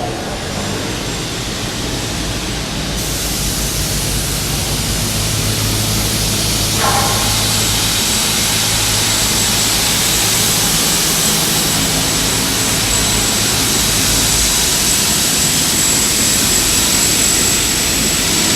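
Double-head aluminium cutting saw running steadily, with a low hum and a thin high whine. The hiss grows about three seconds in, and there is a single short knock with a brief ring about seven seconds in.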